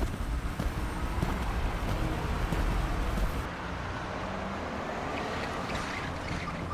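Outdoor street ambience with a steady low rumble like distant traffic. About three and a half seconds in it cuts to a quieter, even indoor room tone.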